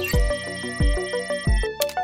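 Background music: an electronic track with a steady kick drum about one and a half beats a second under short plucked notes, and a brief bright hit near the end.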